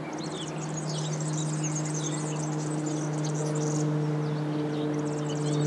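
Small propeller plane's engine droning as a steady low hum, getting gradually louder.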